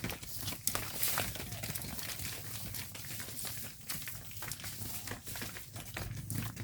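Cattle walking: irregular hoof steps and rustling, over a steady low hum.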